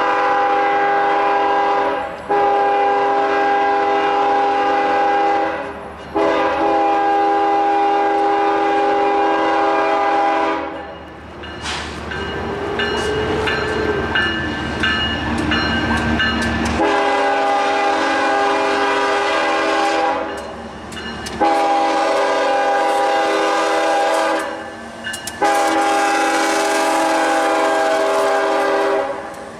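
Second-generation Nathan K5HL five-chime air horn on Ferromex locomotive 4693 sounding a steady chord in six long blasts of about two to four seconds each. A break of about six seconds in the middle is filled by a low rumble with a few clicks.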